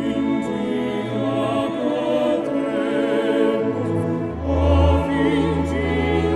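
Music: slow singing with vibrato over held chords, with a low bass coming in about four seconds in.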